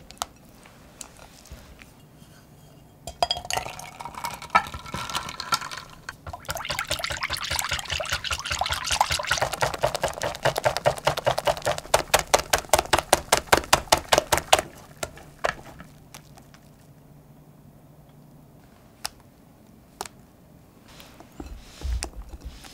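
Wire whisk beating cream in a glass bowl: fast, even strokes with the wires clinking against the glass, for about eight seconds in the middle. Lighter scraping and stirring come before it, and a few soft taps near the end.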